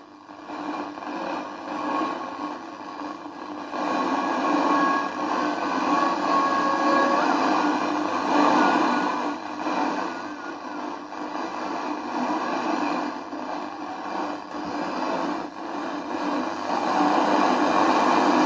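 A homebuilt radio receiver's loudspeaker gives out a continuous hiss and static while its tuning capacitor is turned in search of weak signals. Faint whistles come and go over the noise, one wavering in pitch about halfway through.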